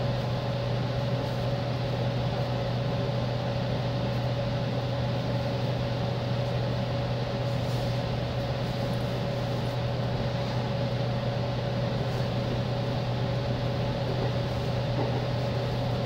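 Interior noise of a JR East 205-series electric commuter train: a steady low hum and rumble with a constant higher tone, unchanging in pitch or level.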